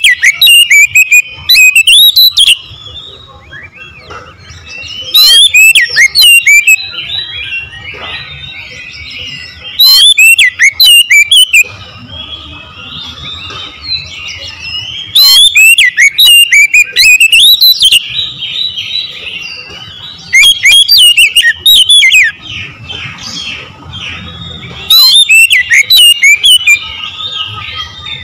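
Oriental magpie-robin (kacer) singing: loud bursts of quick, rising and falling whistled phrases, each two to three seconds long, come about every five seconds, with quieter warbling between them.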